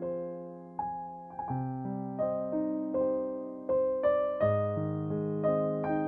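Background piano music: slow chords and single notes, each struck and left to fade.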